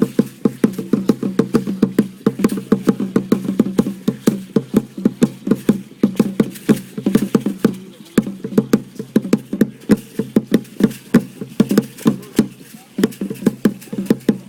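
Rapid, steady drumbeat for a pre-Hispanic dance, several strokes a second over a low ringing drone, with short breaks about eight seconds in and near the end.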